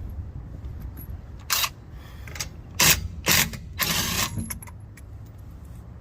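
Diehard 20V cordless 1/2-inch impact wrench run in short trigger bursts, spinning lug nuts off a car wheel: four brief bursts, the last the longest.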